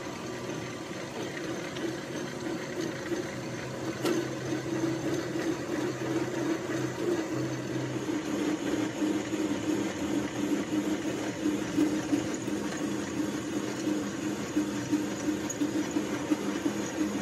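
A machine running steadily with a constant hum and a hiss over it, and a single sharp click about four seconds in.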